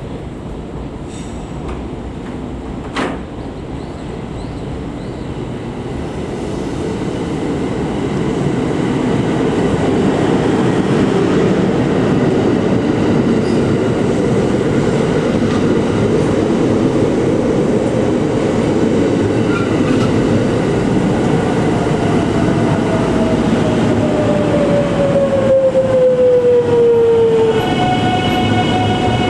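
A 681-series electric train running on the track, its noise growing louder over the first ten seconds. Late on a falling electric whine sounds, and near the end a steady tone with several harmonics.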